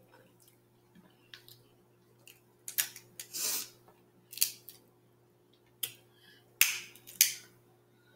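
Snow crab leg shells cracking and snapping as they are broken apart by hand: a series of sharp cracks, with a longer crackle of shell about three seconds in.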